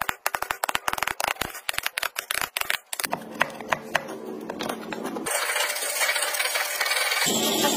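Hand woodworking in hardwood: a rapid run of sharp taps and clicks as a steel chisel chops out a mortise, then, about five seconds in, the steady rasp of a handsaw cutting across the grain.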